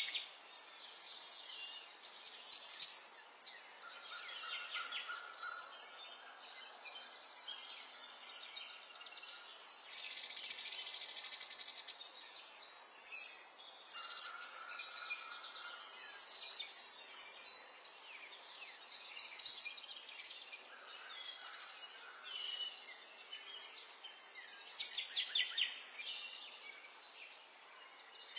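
Several small songbirds chirping and singing in overlapping quick phrases, with a steady buzzing trill about ten seconds in and a short, lower, steady note three times.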